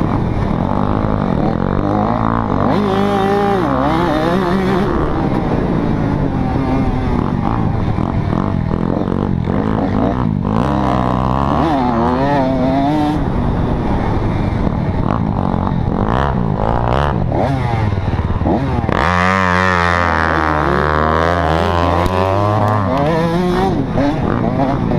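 Motocross dirt bike engine running hard and revving up and down continuously, its pitch rising and falling again and again as the throttle is worked.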